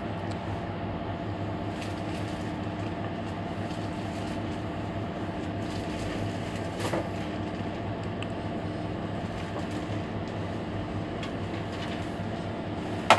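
Mercedes-Benz Citaro C2 hybrid city bus standing at a stop with its drivetrain and onboard systems running: a steady hum with a constant tone. A single sharp click near the end.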